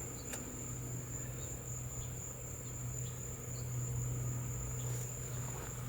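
Steady high-pitched trilling of crickets over a low, steady hum, with a couple of faint clicks.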